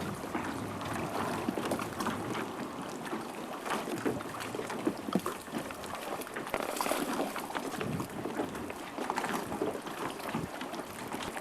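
Water splashing and lapping in irregular small bursts, with wind on the microphone.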